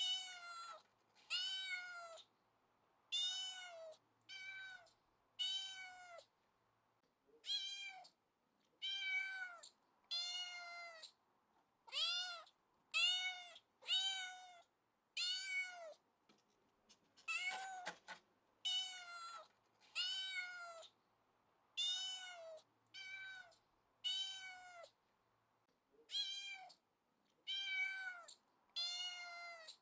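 A cat meowing over and over, about twenty short meows, each rising then falling in pitch, with brief silent gaps between them.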